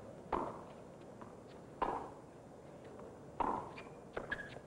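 Tennis ball struck back and forth with rackets in a rally: three sharp hits about one and a half seconds apart, then a few lighter ticks near the end.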